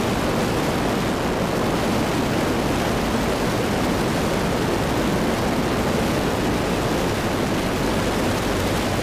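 Steady rush of airflow and engine noise from a Zenith STOL CH 750 Super Duty light aircraft in flight on final approach, flaps deployed. The noise stays even throughout.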